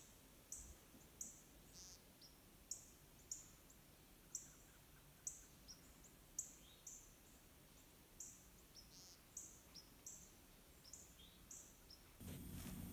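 A bird giving short, high, thin chirps, about two a second and often in pairs, over near silence. Near the end a steady low hum comes in.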